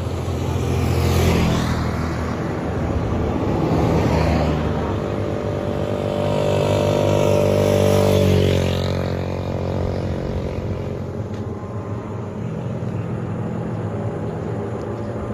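A motorcycle-sidecar tricycle's engine running as it passes close by about eight seconds in, its pitch dropping as it moves away. Other passing traffic swells and fades twice before that.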